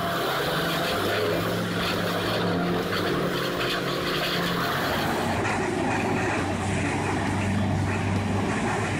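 Heavy wood-processing machine running steadily: a low engine hum with a dense grinding noise over it.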